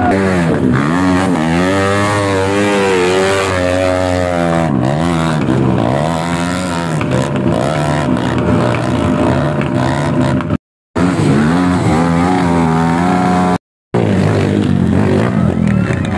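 Dirt bike engine revving hard, its pitch swinging up and down again and again as the throttle is worked. The sound cuts out twice, briefly, about eleven and fourteen seconds in.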